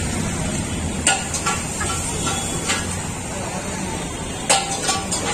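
Steady low background rumble of a street market, with about five sharp metallic clinks and knocks, a few of them ringing briefly.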